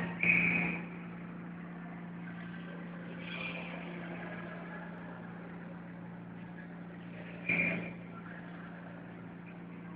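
A steady low hum over a faint noise haze, broken by two short, louder bursts: one right at the start and one about seven and a half seconds in.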